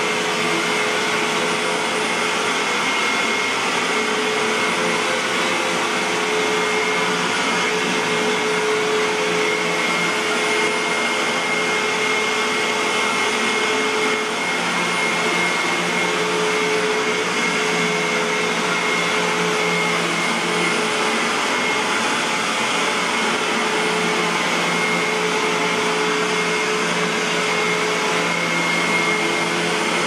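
Hoover WindTunnel upright vacuum cleaner running steadily while it is pushed over carpet: an even rush of air with a steady high whine from the motor.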